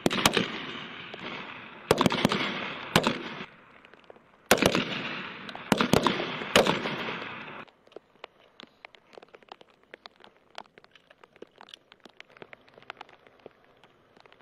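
M4 carbine shots from several shooters on a firing line: single shots at uneven intervals, sometimes two close together, each followed by a long echo rolling off across the range. The firing stops about eight seconds in, leaving only faint small clicks.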